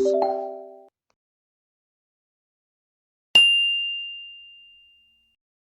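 A single ding: a bright, bell-like tone struck once about three seconds in, ringing and fading away over about two seconds.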